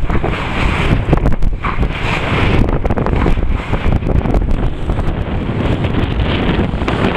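Strong wind buffeting the microphone aboard a small sailboat underway, an uneven heavy rumble, with water rushing and splashing past the hull.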